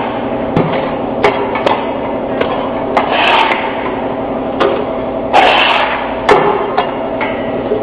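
QT4-30B mobile concrete block making machine running, a steady mechanical hum under sharp metal clanks and knocks as its handles and mould are worked. Two longer, louder rattles come about three and five and a half seconds in.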